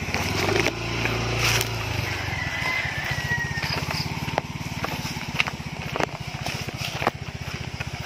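Small motorcycle engine running at low speed over a rough dirt track, its exhaust a fast even pulse, with occasional sharp knocks from the bumps.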